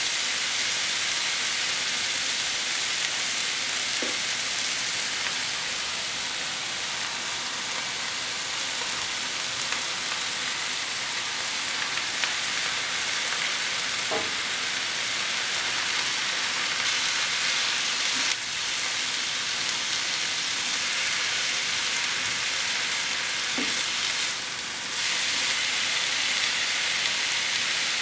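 Vegetables sizzling steadily as they fry in a frying pan, with a spatula stirring them and tapping the pan a few times.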